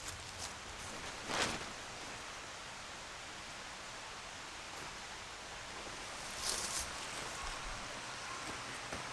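Steady outdoor background hiss, broken by two brief rustles, one about a second and a half in and another near the seven-second mark.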